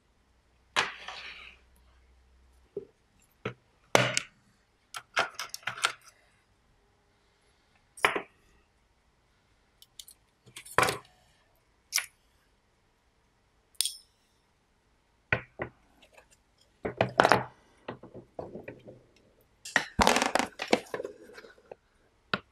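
Small stamped metal parts of a National Panasonic RQ-2730 cassette mechanism clinking and rattling as they are handled, in a dozen or so short, sharp bursts spread out over near silence, with longer clattering rattles near the end.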